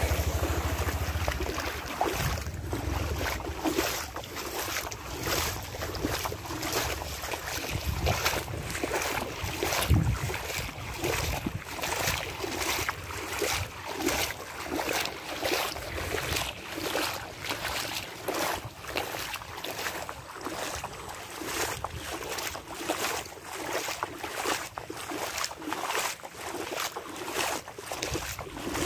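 Floodwater splashing and sloshing in an even rhythm, about one to two strokes a second, with wind on the microphone.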